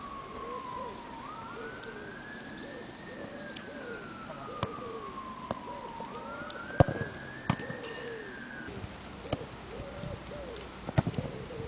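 An emergency-vehicle siren wailing in slow rises and falls, stopping about three-quarters of the way through. Several sharp thumps of a football being struck punctuate it, the loudest near the middle.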